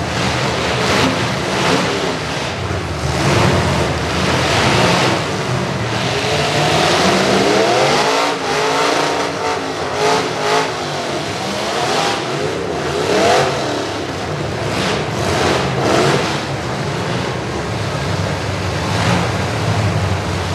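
Several demolition derby car engines running and revving, their pitch rising and falling through the middle, with sharp bangs scattered throughout.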